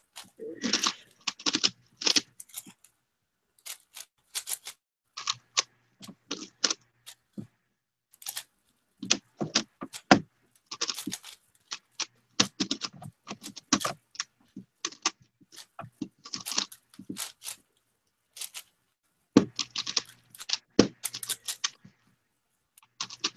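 Megaminx puzzle being turned quickly by hand: plastic layers clicking and clacking in short, irregular bursts with brief silent gaps between them.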